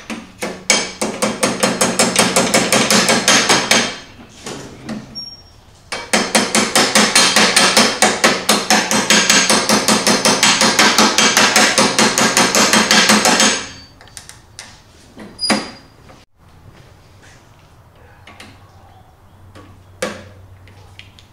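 A hammer tapping a steel roll pin into the riding mower's steering shaft, in quick even blows several a second. The blows come in two long runs with a pause of about two seconds between them, then a few single knocks.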